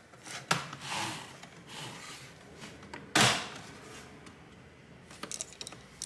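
Plastic case of an Asus F555L laptop being pried apart along its seam with a pizza-cutter opening tool: soft scraping and rubbing, one loud sudden crack about three seconds in, then small scattered clicks near the end.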